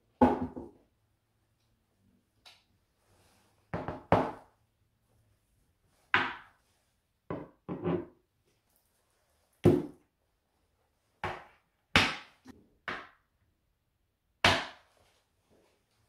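Groceries being set down one at a time on a tabletop: a glass bottle, a plastic tub and tins landing with short knocks, about a dozen in all at uneven intervals.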